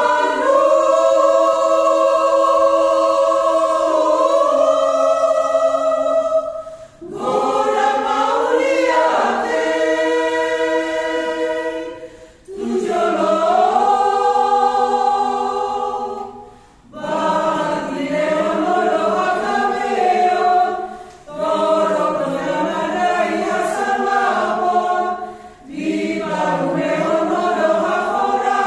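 Mixed church choir of men and women singing in harmony. The song comes phrase by phrase, with short breaks for breath every four to six seconds.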